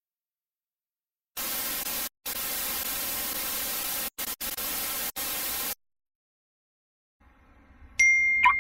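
Static hiss like white noise starts about a second and a half in and runs for about four seconds, cutting out briefly a few times before it stops. Near the end a sudden loud ding rings on with a steady high tone.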